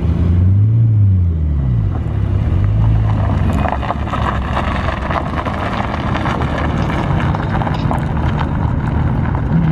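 Jaguar XE S's supercharged 3.0-litre V6 revving up and back down twice, then running steadily as the car pulls away, with the tyres crunching over gravel.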